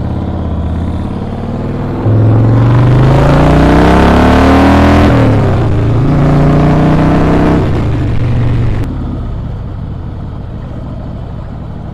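Harley-Davidson Breakout's V-twin engine heard from the bike while riding. It revs up under acceleration, drops in pitch with a gear change about five seconds in, climbs again, then eases off. Wind rush is heavy while it pulls and cuts off sharply as it slows.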